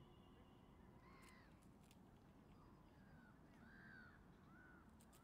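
Near silence with faint bird calls: a handful of short, arched calls, starting about a second in and clustered near the end.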